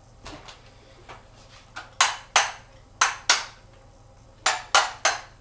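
Sharp hard-plastic knocks from a black-and-yellow toy tool being struck: a few faint taps, then two pairs of loud knocks and a quick run of three near the end, each dying away fast.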